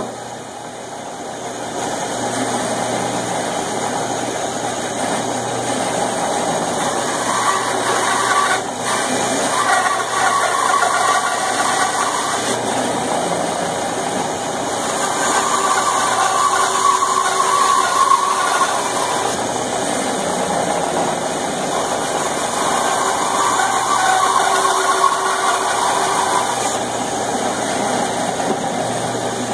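Band saw running steadily while a wooden board is fed through its blade, the sound growing louder for a few seconds at a time, three times, as the blade cuts into the wood.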